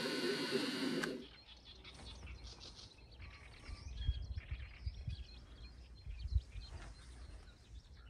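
Small wild birds chirping repeatedly over an open wetland, with gusts of wind rumbling on the microphone, strongest in the middle. A louder sound cuts off about a second in.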